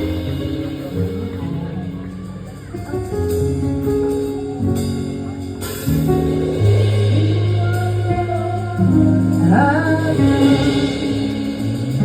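Church worship music: held chords over a strong bass line, with a voice singing over it near the end.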